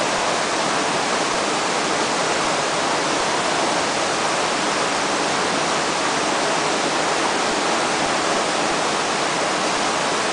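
Fast river current rushing steadily, an even hiss of moving water.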